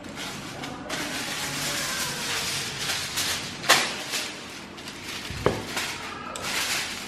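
Aluminium foil crinkling and rustling as a sheet is pulled out and spread over a metal baking tray, with a sharp crack about halfway through and a dull knock a couple of seconds later.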